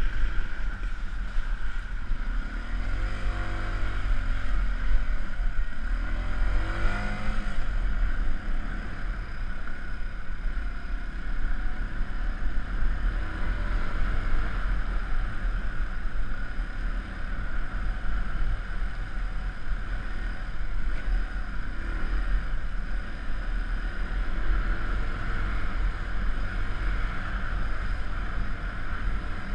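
Yamaha WR125R's single-cylinder four-stroke engine running under way on a trail, with the revs rising briefly a few seconds in and again about seven seconds in.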